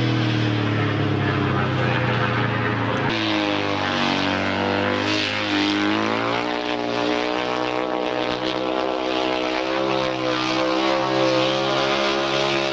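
500 cc single-cylinder speedway motorcycle engines running on the track, a steady engine drone whose pitch jumps abruptly about three and six seconds in, then starts to fall near the end.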